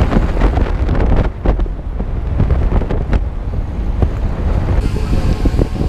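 Wind buffeting the microphone over the low rumble and rattling knocks of a tuk tuk on the move.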